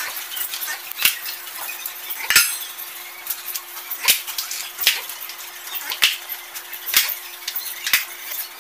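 Metal and plastic dog food bowls set down one after another on a concrete floor, a sharp clack about once a second. A faint steady hum runs underneath.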